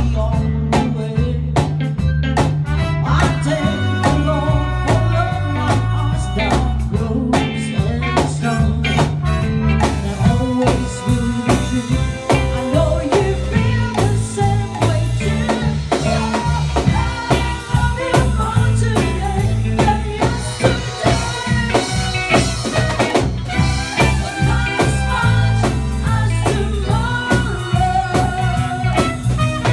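Live band playing a song: a woman singing into a microphone over drum kit, electric guitar and keyboard, the drumming growing busier about a third of the way in.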